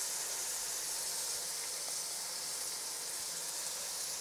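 Tomatoes, fried onions and whole spices sizzling in hot ghee in a karahi: a steady, even hiss.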